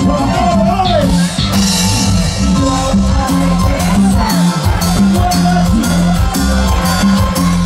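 Live band music played loud through PA speakers, with a steady beat and bass line and a man's voice calling out into a microphone over it.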